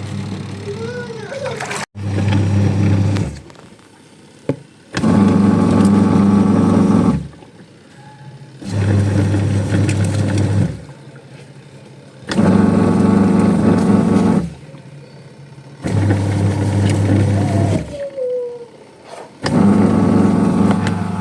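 Semi-automatic washing machine's wash motor running in repeated bursts of about two seconds with short pauses between, six times, a low hum as the pulsator churns the water: the wash timer switching the motor on and off through its cycle.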